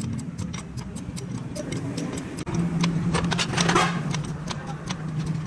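Rapid, irregular metallic clicking and tapping of hand tools working on the engine's parts during disassembly, over a steady low hum.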